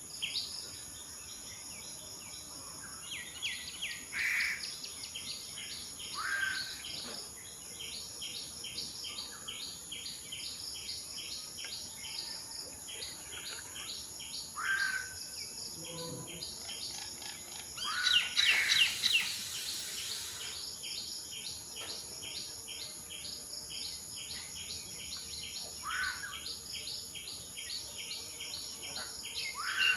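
Asian koel calling now and then in short rising notes, over a steady high-pitched insect drone and fast, continuous chirping. A louder burst of calls comes about two-thirds of the way through.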